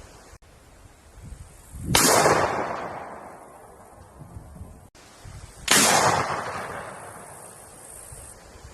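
Two single gunshots, each from a separate clip and nearly four seconds apart, about two seconds in and near six seconds in. Each is a sharp report followed by an echo that fades over about a second and a half.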